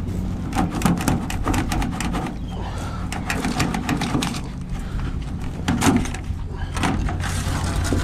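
An engine running steadily at a low pitch, with irregular clattering knocks and scrapes over it.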